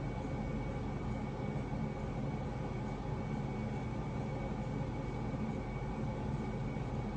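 Steady background noise with a low hum and a faint thin high whine, unchanging throughout: room tone with no distinct sound events.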